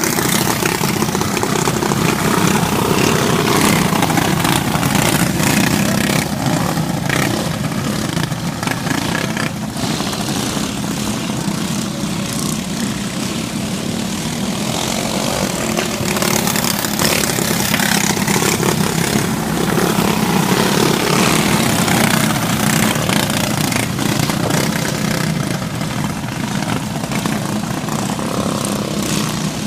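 Briggs & Stratton Animal single-cylinder four-stroke kart engine running hard on hot laps, its engine speed rising and falling through the lap.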